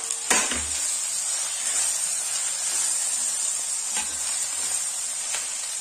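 Aloo methi (potato and fenugreek leaves) sizzling in a pan while it is stirred with a wooden spatula, a steady frying hiss with a few light knocks of the spatula against the pan.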